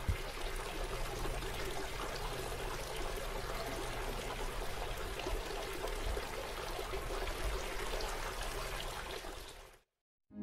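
Garden fountain water splashing and trickling steadily; it cuts off abruptly near the end.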